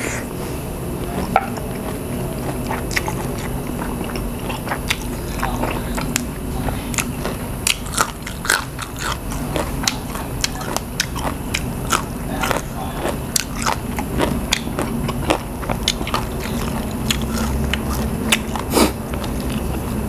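Close-up chewing of a mouthful of grilled pork-neck nam tok salad, with frequent irregular crunches and wet mouth clicks, over a low steady hum.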